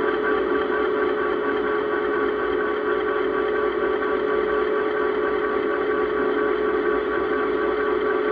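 Cybertrack 100 e-bike riding along a paved road: a steady hum of unchanging pitch over road and wind noise.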